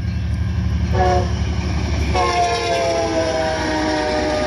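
Amtrak passenger locomotive's air horn sounding at a grade crossing: a short blast about a second in, then a long chord blast from about two seconds in that sags slightly in pitch. A steady low diesel engine rumble runs underneath.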